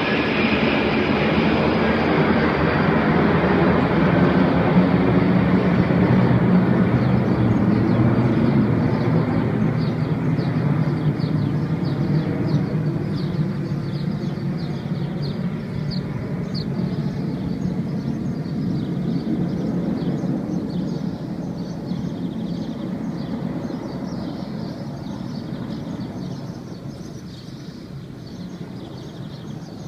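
Jet noise from a formation of CASA C-101 trainer jets flying past overhead. The whine slides down in pitch as they pass, and the rumble slowly fades over the following half minute.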